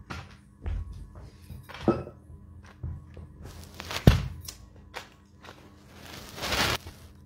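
Phone being handled and moved close to its microphone: a run of small knocks and clicks, one loud thump about four seconds in, and a rustling swish near the end.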